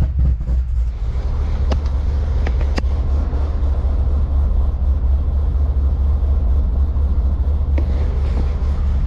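Car engine idling with a steady low rumble, warming up just after a cold start.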